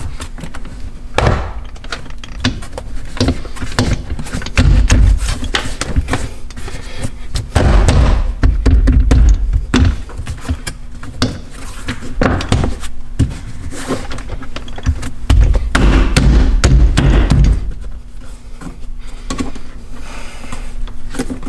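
Plastic interior trim panel being pushed and knocked into place by hand so its plastic clips seat in their holes: a run of irregular knocks and clicks, with three heavier stretches of repeated thumping.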